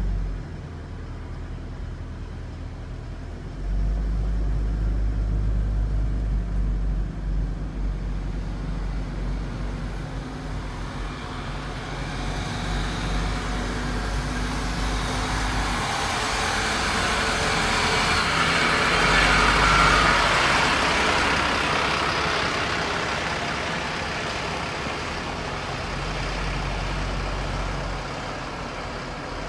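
Vehicle noise heard from inside a slowly moving car: a low engine and road rumble, and a rushing noise that builds to its loudest about two-thirds of the way through and then eases as the car passes parked fire trucks.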